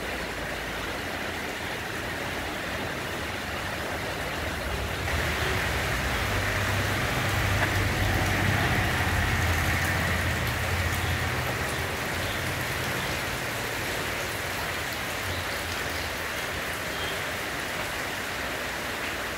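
Steady rain falling under a corrugated metal-sheet roof, an even hiss with no break. A low rumble swells and fades again in the middle.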